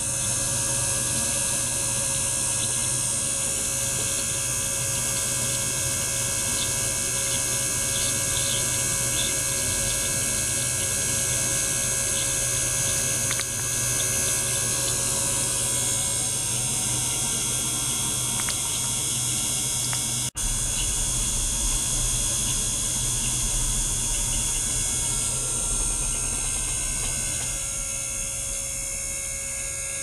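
Small liquid pump running steadily, circulating water through tubing into a beaker, with a constant hum and a bright hiss over it. About two-thirds of the way through the sound breaks off for an instant and comes back with a deeper hum.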